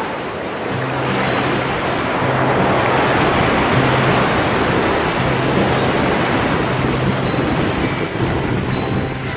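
Sea waves breaking and washing over the pebbles and rocks of the shoreline, a steady rushing that swells loudest a few seconds in, with music playing underneath.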